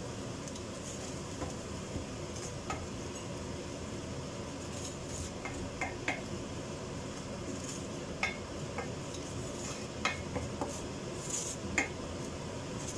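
Wooden spatula stirring and scraping flour through hot oil in a stainless steel frying pan, cooking a roux for béchamel sauce, with short knocks and scrapes of the spatula against the pan now and then.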